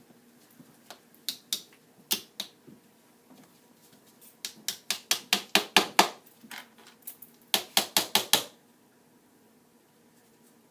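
Hammer driving nails into a wooden board: a few single taps, then two quick runs of blows at about four a second, then the blows stop.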